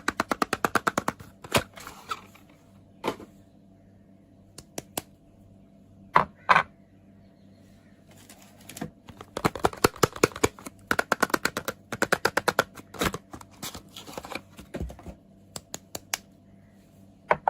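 Soap and its packaging being handled and opened close to the microphone: crisp, rapid trains of clicks and crackles in bursts, with single sharp clicks between them.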